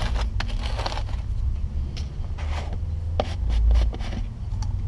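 Hands scraping and rubbing a pipe in the soil of a dug-out hole, with scattered sharp clicks and knocks over a steady low rumble. A louder low rumble swells briefly about three and a half seconds in.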